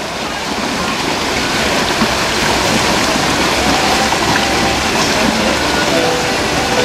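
Steady rushing water noise from swimmers splashing as they race in the pool, heard as an even hiss.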